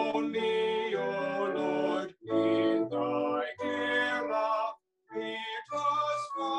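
A man singing a hymn, held notes sung phrase by phrase, with two brief pauses between phrases.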